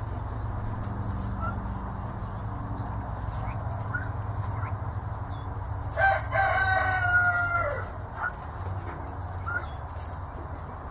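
Young turkeys feeding on fresh-pulled grass, giving short high peeps and, about six seconds in, one loud drawn-out call that drops in pitch at the end, over a steady low hum.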